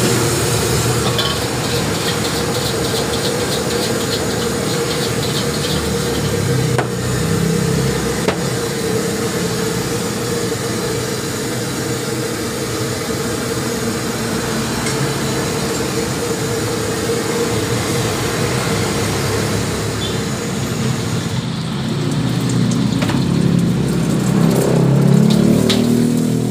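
Gas wok burner running with a steady rush and hum. In the first few seconds a bamboo wok brush scrubs rapidly against the steel wok; a couple of ladle knocks follow, and near the end egg frying in hot oil sizzles as the sound swells.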